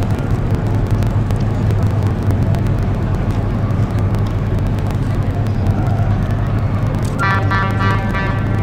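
Low, steady engine drone of a large passenger cruise ship moving slowly past at close range. About seven seconds in, a voice calls out briefly over it.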